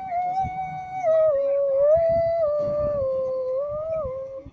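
A dog howling: one long howl that wavers, sliding down and back up in pitch several times before breaking off near the end.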